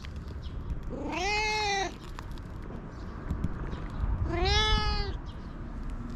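A long-haired tabby cat meowing twice, about a second in and again about four seconds in, each meow drawn out and rising then falling in pitch.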